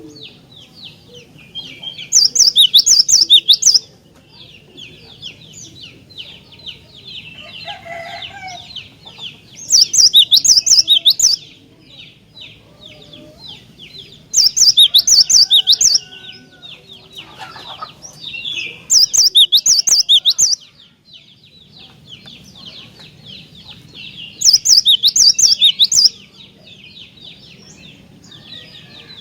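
Cinereous tit (glatik batu) singing in loud bursts of rapidly repeated high notes, each about a second and a half long, five times, a few seconds apart. A quieter, continuous high twittering runs between the bursts.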